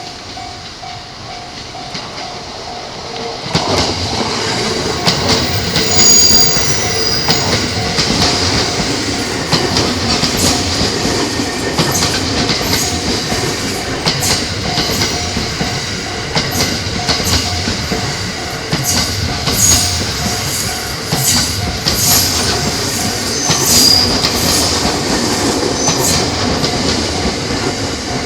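A 15-car JR E217-series electric train passing over a level crossing, its wheels clattering over the rail joints with brief high-pitched wheel squeals. The noise rises sharply about three and a half seconds in. The crossing's warning bell rings steadily underneath.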